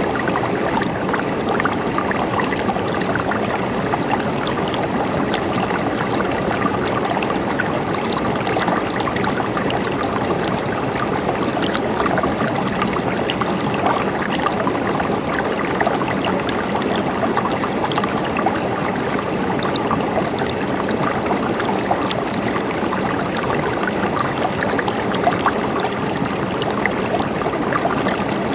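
A stream of water flowing steadily, its level even throughout.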